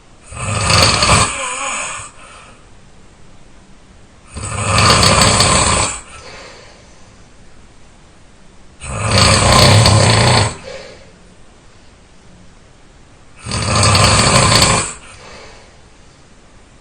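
A person snoring loudly: four snores, each about one and a half to two seconds long, about one every four and a half seconds, with quiet breathing between them.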